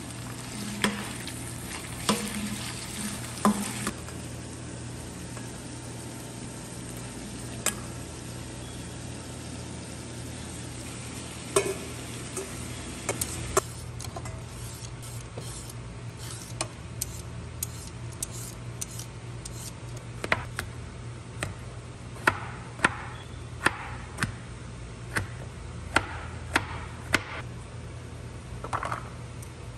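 Shredded chicken sizzling in hot oil in a wok, with a metal slotted spatula scraping and knocking against the pan as it is stirred. This fades after a few seconds. Later, a knife chops a cucumber on a plastic cutting board in a run of sharp, irregular taps, about one or two a second.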